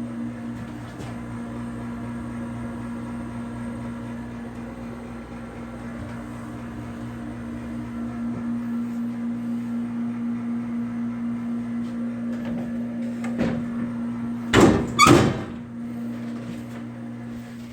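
Commercial coffee machine running with a steady hum, then two loud clunks close together near the end.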